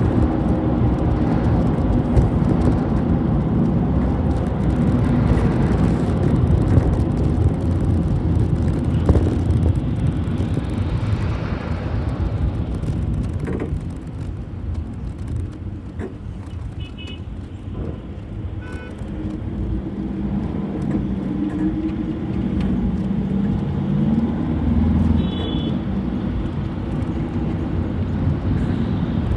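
City bus running, heard on board: a steady engine and road rumble that quietens partway through, then rises again as the engine pulls harder. A few short electronic beeps sound in the middle and near the end.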